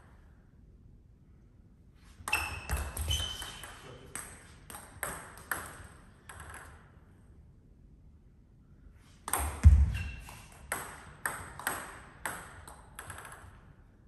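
Two table tennis rallies: the ball clicking off the bats and the table about twice a second. The first rally starts about two seconds in, and after a pause a second one starts about nine seconds in.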